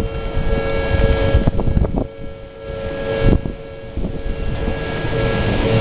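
Electronic warning bell of a Japanese railway level crossing ringing steadily, over a low rumble with a few knocks.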